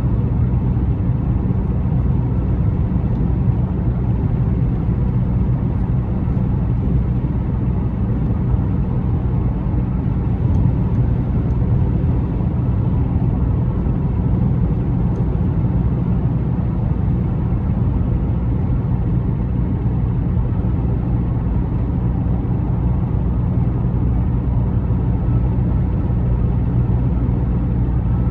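A car driving at a steady speed: a constant low rumble of engine and road noise that holds even throughout.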